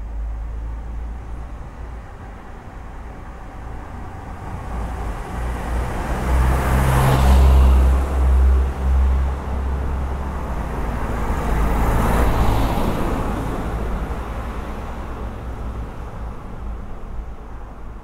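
Two cars passing one after the other on a quiet street, their tyre and engine noise swelling and fading: the louder first car about seven seconds in, the second about twelve seconds in. A low steady street rumble lies under both.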